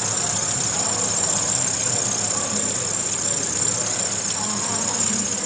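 Nissan Pathfinder's 4.0-litre V6 (VQ40DE) running steadily at idle, with a steady high hiss over the engine note.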